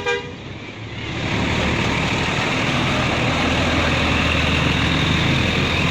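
Tour bus diesel engine running with a steady low rumble. A horn note cuts off right at the start, and the engine sound builds back up over the first second or two.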